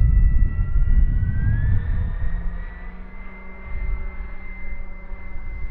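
Twin 50 mm electric ducted fans of an RC Boeing 737 model whining, one fan's pitch rising about a second and a half in as the throttle changes. Wind buffets the microphone with a heavy low rumble that eases about two seconds in.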